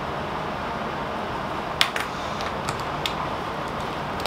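Steady fan-like room hiss, with a few light clicks and taps in the middle from small craft items (drill bags, a pen) being handled on the table.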